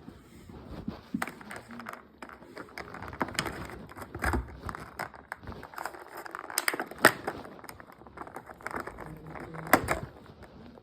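Toy packaging being handled and opened: plastic and cardboard crinkling, with irregular clicks and scrapes.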